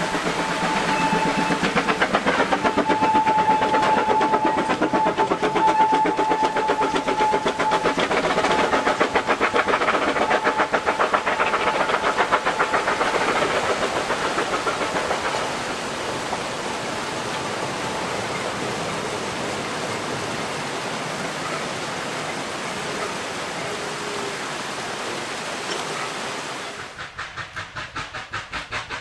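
Two narrow-gauge steam tank locomotives double-heading a train pass close by, their exhaust beats chuffing rapidly and loudly. A steady high note is held for several seconds near the start. The carriages then roll past more quietly.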